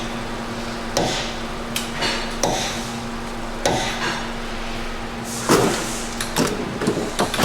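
Hammer driving a punch in separate sharp blows, about one a second, staking the axle nut's collar into the axle shaft so the nut can't loosen itself.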